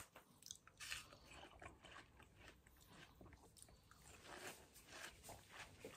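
A person eating, heard faintly: soft biting and chewing with small crunches.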